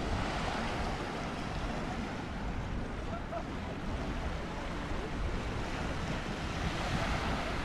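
Sea waves washing onto a sandy beach in a steady, continuous wash, with wind rumbling on the microphone.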